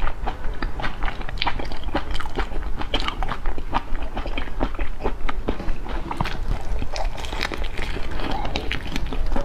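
Close-miked chewing and biting of whole marinated shrimp, a dense run of quick, irregular wet clicks and crunches.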